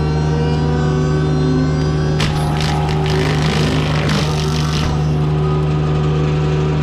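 Mini excavator with a forestry mulcher head running at steady high revs. It gives a constant drone, with about two and a half seconds of harsh grinding bursts near the middle as the mulcher teeth chew into wood.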